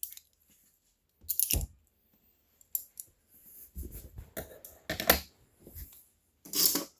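A worn butterfly knife with a pin in place of its pivot screw being flipped by hand: its handles clicking and clacking against each other in short, irregular bursts, about half a dozen in all.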